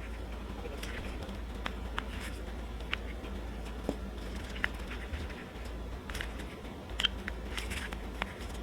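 Cured resin pieces being peeled and popped out of a flexible silicone mold: soft crackling and peeling with scattered small clicks, the sharpest about seven seconds in, over a low steady hum.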